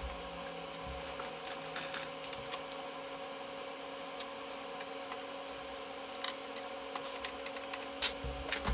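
Scattered light clicks and taps of hands handling a wooden disc and a right-angle drill adapter in a drill press chuck, over a steady background hum. Two louder knocks come near the end.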